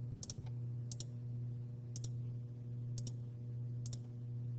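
Computer mouse clicking about once a second, each a quick double tick of press and release, as lines are selected one by one, over a steady low hum.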